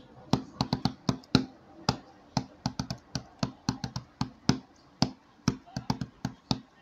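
A rapid, uneven series of sharp taps, about four or five a second.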